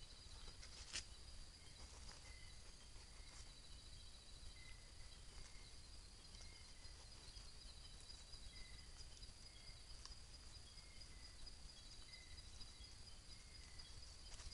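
Faint chorus of night insects: a steady high buzz, a fast ticking trill and a short lower chirp repeating about once a second. A single faint click comes about a second in.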